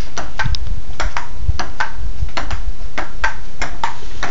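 Ping-pong ball clicking off the paddles and the table in a rally: a quick, uneven run of sharp taps, about three a second.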